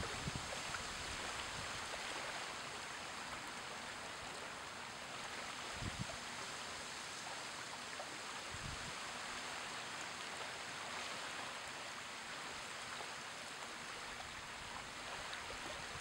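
Small waves washing steadily against the shore, an even wash of water, with two brief low thumps about six and nine seconds in.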